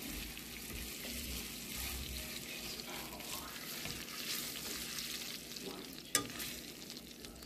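Melted butter and oil sizzling steadily in a nonstick frying pan, with one sharp tap about six seconds in.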